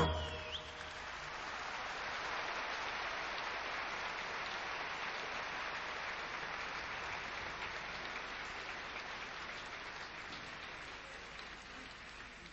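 Audience applause in a theatre, the clapping swelling over the first couple of seconds after the music stops and then slowly fading.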